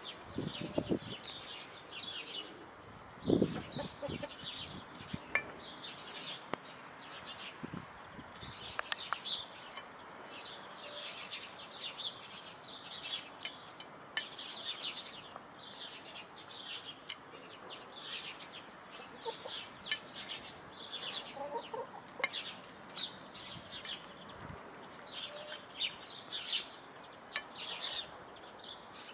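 Brown laying hens clucking now and then while feeding, with scattered sharp clicks of beaks pecking at a metal bowl of pasta. Busy high chirping of small birds runs throughout.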